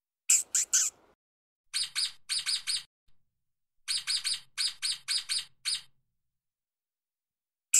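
Stoat (ermine) giving high-pitched chirps: a quick burst of three loud chirps, then two runs of rapid, slightly quieter chirps, a pause, and another burst of three right at the end.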